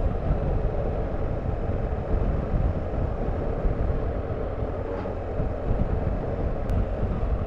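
BMW R1250GS boxer-twin motorcycle under way at steady speed: a steady mix of engine drone, wind and road rumble.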